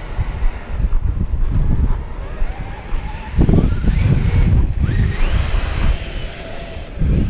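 Brushless electric motor of a large RC monster truck whining, with a rising whine about four to five seconds in as it speeds up. Heavy wind buffets the microphone, louder from about halfway through.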